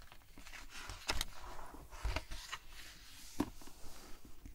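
A page of a glossy hardcover picture book being turned by hand and laid flat: paper rustling with a few sharp crackles and taps.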